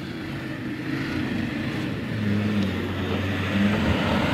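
Off-road 4x4's engine running under load, its pitch shifting up and down and getting louder toward the end.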